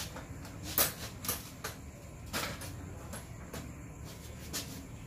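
Several sharp plastic knocks and clacks as the Kreg Mobile Project Center's plastic worktop panel is set onto and fitted against its steel stand, the loudest about a second in.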